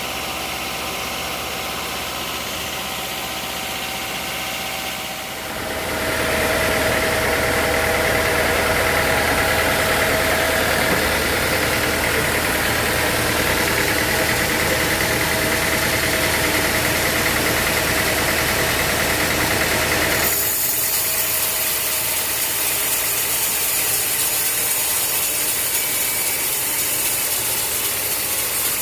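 An engine running steadily, its tone and loudness changing abruptly about five seconds in and again about twenty seconds in.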